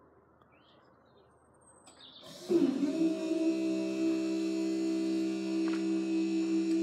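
Faint bird chirps, then about two and a half seconds in the level crossing barrier's power unit starts with a sudden, steady, multi-pitched hum as the barrier boom lifts.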